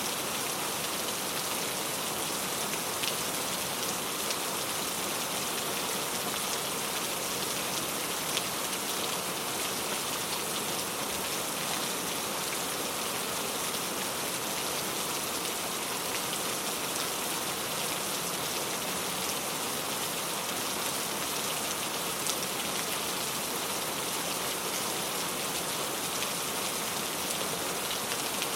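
Steady rain falling on a surface: a dense, even hiss with scattered individual drops ticking through it.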